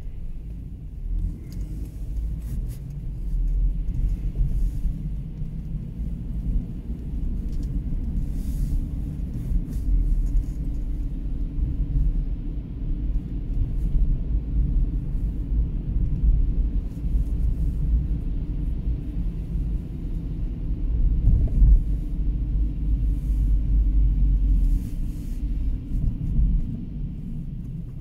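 Low, uneven rumble of a car driving along the road, heard from inside the car. It grows louder a few seconds in and eases near the end.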